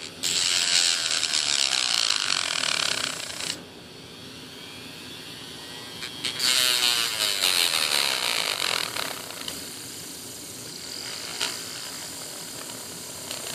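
Handheld rotary tool with a cut-off disc, run at low speed, grinding the end of a carbon fiber rod. It grinds in two passes of about three seconds each, a few seconds apart.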